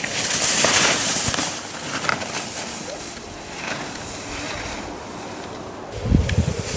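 Skis hissing and scraping over spring snow in surging waves, with wind buffeting the microphone; a low rumble of wind on the microphone comes in about six seconds in.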